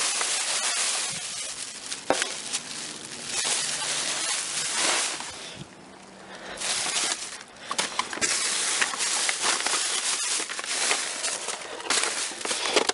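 Plastic trash bag rustling and crinkling, with scattered knocks and clicks as hands dig through dumpster contents.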